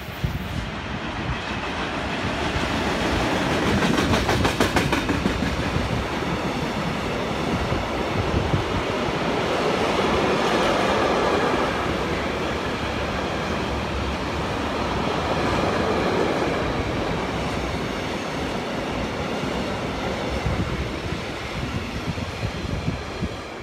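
Freight train of tank wagons rolling past at close range: a steady rumble with wheels clattering over the rail joints, loudest about four to five seconds in.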